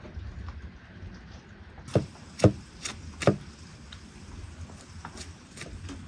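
Knocks of a raw leg of lamb and a knife being handled on a wooden cutting board during trimming: four sharp knocks in quick succession about two seconds in, then a couple of fainter clicks near the end.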